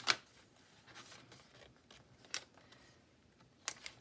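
Paper pages of a handmade junk journal being turned by hand: a sharp swish at the start, then softer paper rustles about every second or so.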